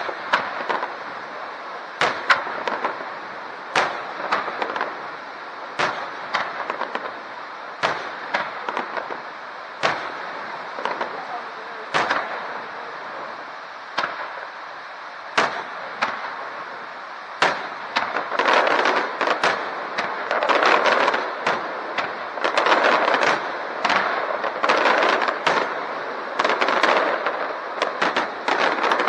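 Fireworks display: aerial shells bursting with sharp bangs every second or two. About two-thirds of the way in the bangs come thick and fast, with crackling between them.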